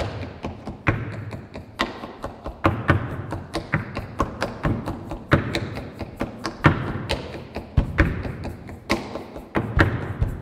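Tap shoes striking a stage floor in quick, irregular rhythms of sharp metal clicks, with deeper thuds mixed in.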